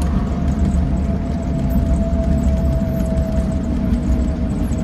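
Steady road and engine rumble of a small motorhome being driven, with a thin steady whine above it.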